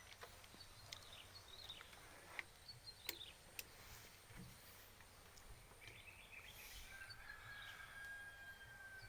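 Near silence: faint outdoor ambience with a few soft clicks and faint high chirps, and a thin, steady high tone for the last couple of seconds.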